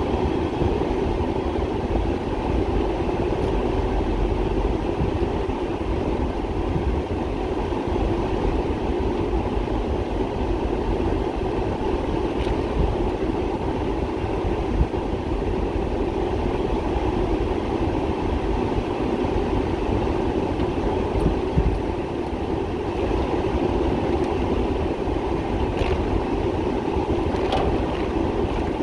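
Steady rumble and hiss of a car driving slowly over rain-soaked streets, heard from inside the car, with rain on the road and a few faint clicks.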